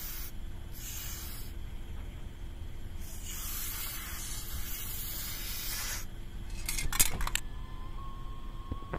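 Aerosol silicone spray lubricant hissing out through its straw nozzle onto a car door's power-window rubber weatherstrip, in several spurts, the last about three seconds long. A few sharp clicks follow about seven seconds in, then a steady thin tone near the end.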